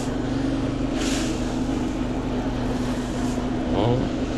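Posho mill (maize grinding mill) running with a steady, even hum. About a second in, a brief hiss, perhaps flour or grain being handled.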